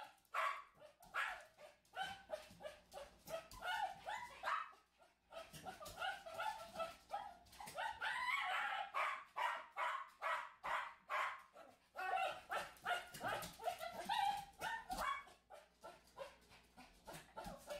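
Small dog barking over and over in quick, short barks, several a second, with a brief lull about four to five seconds in; it is excited, waiting for a balloon to be batted to it.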